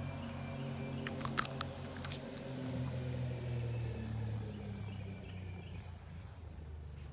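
Chickens close to the microphone making low, drawn-out clucking sounds, with a few sharp clicks about one and two seconds in that fit beaks pecking at the wire or phone.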